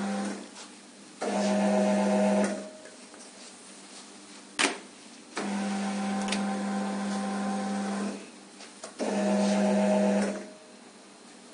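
Conveyor belt motor of a QMAX NF-1 garment needle detector humming steadily, starting and stopping several times: longer runs alternate with shorter, louder runs of a different pitch. A single sharp click comes near the middle.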